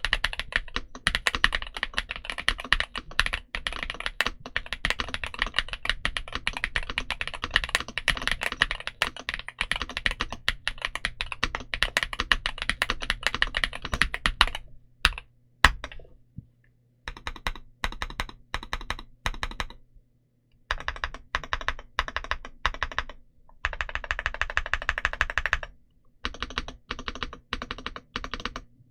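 Yunzii AL65 mechanical keyboard with Gateron Zero switches being typed on: fast, continuous typing for about fifteen seconds, then a short pause and slower groups of keystrokes with brief gaps between them.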